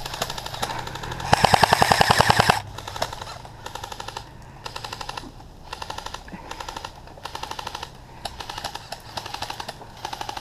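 Airsoft guns firing on full auto: one loud, rapid burst of about a second just over a second in, then repeated shorter, fainter bursts of rapid clicking.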